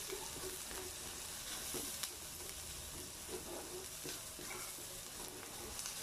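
Chopped onions and garlic sizzling in hot oil in a frying pan, stirred with a spatula that scrapes and taps against the pan now and then.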